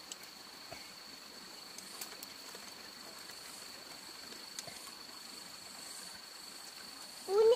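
Steady high-pitched insect chirring, one unbroken tone, with a few faint clicks scattered through it. Near the end comes a short, loud rising call.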